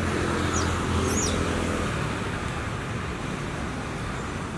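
Steady outdoor background rumble with a low hum, typical of road traffic, and two short, high, falling chirps in the first second or so.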